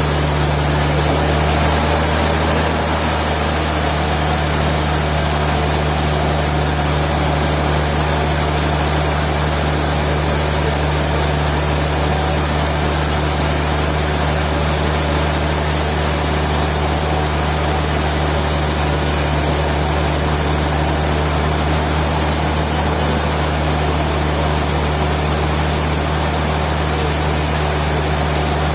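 Sawmill machinery running steadily: a constant low engine-like hum with an even hiss above it, unchanging in level.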